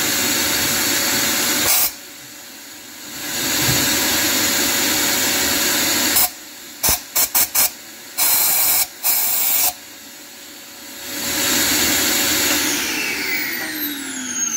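Compressed-air blow gun hissing into a drilled hole in concrete to blow the dust out, in long blasts and then a quick run of short bursts, over a vacuum cleaner sucking up the debris. Near the end the vacuum's motor winds down in falling pitch.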